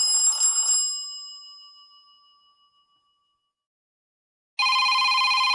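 Preset tones of a Nokia T26 played one after another. A short bright chime rings out and fades over about two seconds, then after a silence a steady, even electronic tone begins near the end and holds for about a second.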